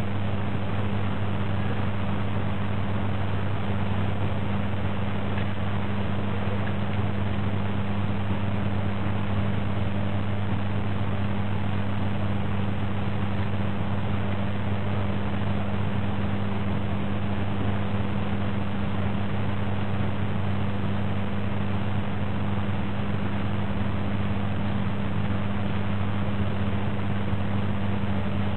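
Steady low hum with a constant hiss, unchanging throughout, with no crowd noise or voices over it: the recording's own noise while the stadium holds a minute's silence.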